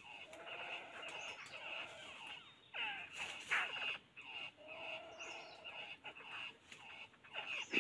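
Several birds calling in quick, overlapping chirps and short warbled notes, over a steady high-pitched buzz, with a sharp click near the end.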